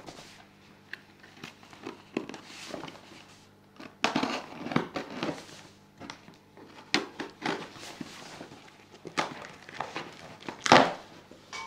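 Knife cutting through packing tape on a cardboard box: irregular scraping and crinkling strokes of tape and cardboard, with the loudest scrape near the end.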